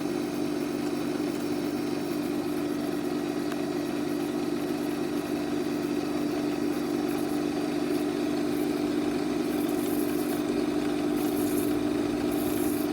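Stark No. 4 lathe running on its drive motor: a steady hum with one strong tone, and a few short high hisses in the second half.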